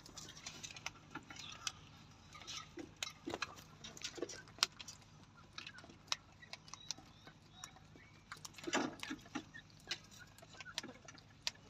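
Francolin (teetar) pecking at its food: irregular sharp taps of beak on food and dish, with a few soft short calls.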